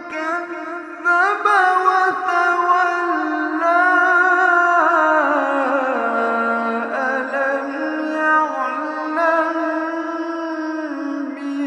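A man's voice reciting the Quran in the melodic, drawn-out tajwid style: one long ornamented phrase that steps down in pitch around the middle and then holds on a lower note.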